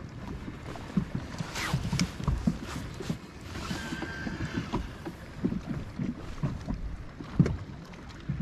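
Small waves lapping and slapping against a fishing boat's hull in a light chop: an irregular string of low knocks. A brief faint whine comes in about four seconds in.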